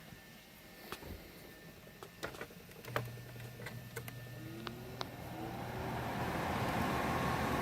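Small window air conditioner starting up: a few sharp clicks, then a low steady hum sets in about three seconds in. From about halfway, the fan spins up with a rising whine and its rush of air grows steadily louder.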